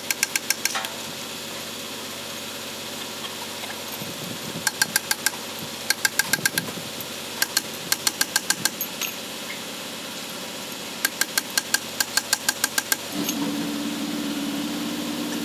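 Short runs of rapid, sharp metallic clicking, about ten clicks a second, repeated several times, like a hand tool being worked on truck axle parts. About thirteen seconds in, a steady, even hum starts up and runs on.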